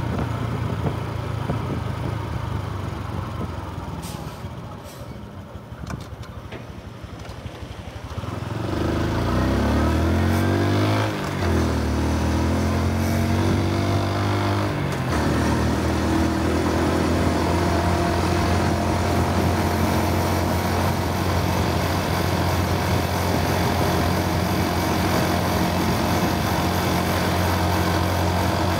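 Honda Super Cub C125's single-cylinder four-stroke engine and exhaust, running quietly at first. About eight seconds in it pulls away, the pitch rising through the gears with shifts near eleven and fifteen seconds, then it cruises at a steady pitch.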